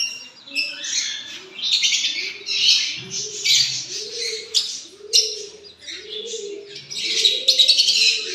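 Doves cooing in a steady series of low rising-and-falling notes, about one every second or less, with many small birds chirping loudly over them.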